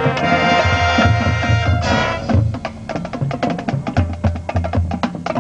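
Marching band playing: the full band holds a chord, then about two seconds in the winds cut off and the percussion section carries on alone with rapid, sharp drum hits over low drum notes.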